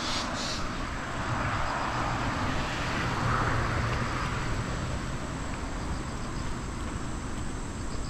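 Typhoon wind and rain: a steady rushing noise that swells for the first few seconds, peaks about halfway, then eases, over a low rumble.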